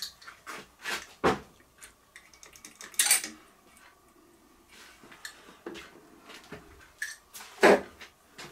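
Metal clinks and knocks from hands handling an aluminium DRO scale channel and small metal parts in a machine vice. There are several separate sharp clinks, the loudest about three seconds in and again near the end.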